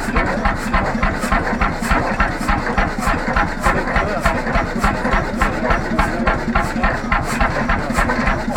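1943 Bjørnevik 20 hp single-cylinder semi-diesel (hot-bulb) engine running steadily at idle, its firing strokes making an even beat of a few a second.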